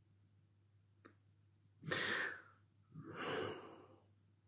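A man breathing out audibly twice, two breathy sighs about a second apart.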